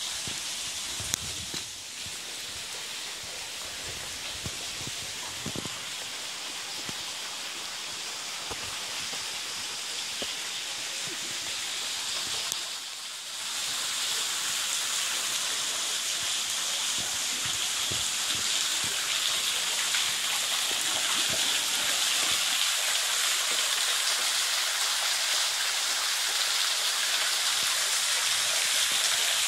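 Water falling and dripping from a rock overhang, a steady rain-like hiss and patter that grows louder about halfway through after a brief dip.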